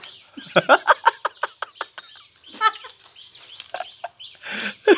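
Chicken clucking: a quick run of about ten clucks in the first two seconds, then a few scattered calls.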